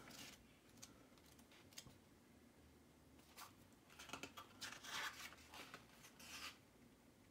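Mostly near silence, with faint rustling, scratching and small clicks of things being handled, busier in the second half.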